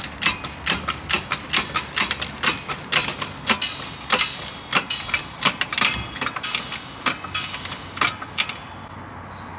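Hydraulic trolley jack being pumped by its handle to lift a car, each stroke clicking, about three clicks a second. The clicking stops near the end.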